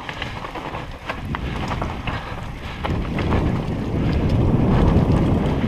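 Wind rushing over the camera microphone as a mountain bike descends a dirt trail, with tyre noise and scattered clicks and rattles from the bike. The rush grows louder in the second half.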